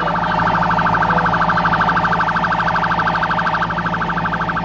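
Electronic siren sounding a very fast, steady pulse at one pitch, over a low hum and faint distant voices.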